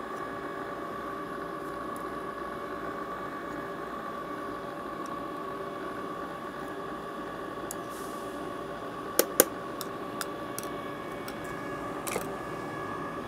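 Self-cooling ice cream maker running, its motor turning the paddle through thickening mocha ice cream with a steady hum; two sharp clicks about nine seconds in.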